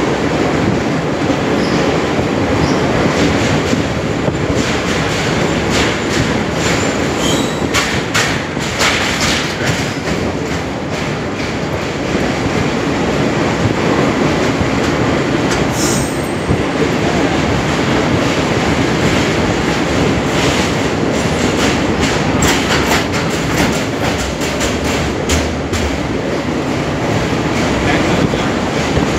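A train running across the bridge, a continuous loud rumble of wheels on rails with clusters of sharp clicks and clatter from the wheels.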